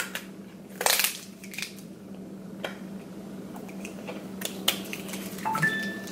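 A plastic honeycomb container being worked open by hand: scattered clicks and crackles of the plastic lid, the loudest about a second in, with a few brief squeaks near the end. A low steady hum runs underneath.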